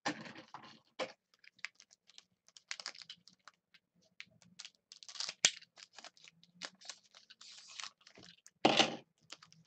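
Foil wrapper of a 2013 Panini Crown Royale football card pack crinkling and crackling as it is torn open by hand, in a run of quick irregular crackles, with a louder crackling tear near the end.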